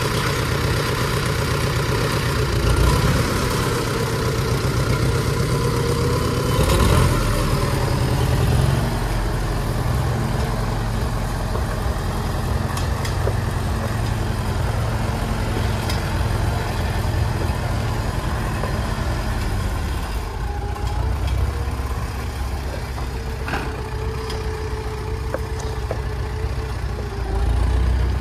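Farmall Super M-TA tractor's four-cylinder engine running steadily as the tractor is driven away, a little quieter over the last third.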